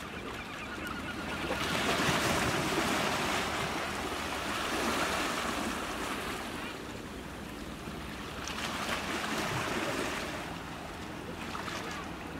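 Sea waves washing against the shore: one wash builds about two seconds in and slowly fades, and a second one swells around nine seconds in.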